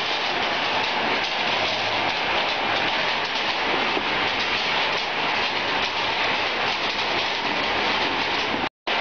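Nut grading machine running: a steady, dense rattle of nuts rolling and bouncing over its sheet-metal grading screens. The sound drops out for a moment near the end.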